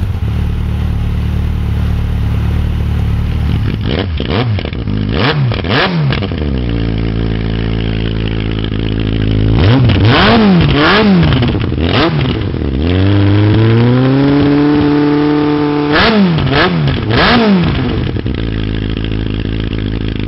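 Yamaha XJR 1300's air-cooled inline-four engine idling at a standstill, blipped in several groups of two or three sharp revs. Midway it is held at raised revs for about three seconds, then drops back to a steady idle.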